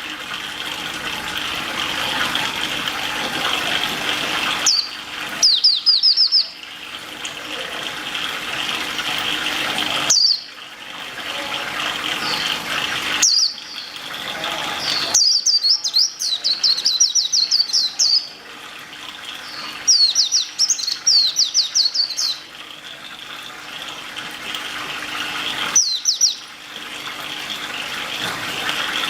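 A small songbird singing bouts of fast trills made of short, repeated downward-sweeping notes. The bouts alternate with stretches of steady rushing noise like running water, which swells in loudness.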